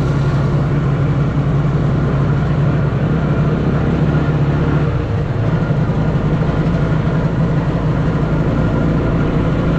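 Homemade all-terrain tricycle's engine running steadily, its note rising a little about halfway through.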